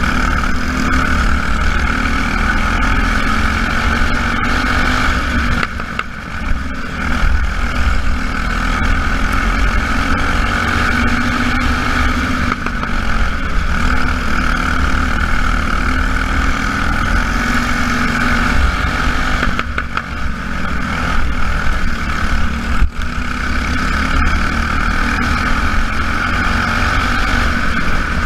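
Small race-car engines running laps during a Jr Lite feature, several at once, their pitch rising and falling as they accelerate and pass, with brief lulls twice.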